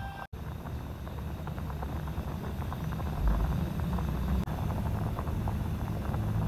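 Pot of water at a rolling boil on a gas stove: a dense, irregular bubbling crackle over a steady low rumble. The sound drops out for an instant near the start.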